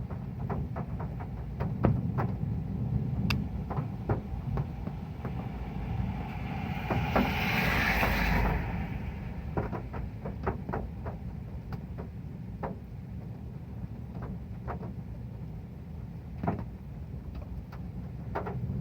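Heavy rain drumming on a metal roof: a steady low rumble with many separate sharp drop ticks. A brief rushing swell of hiss comes about halfway through.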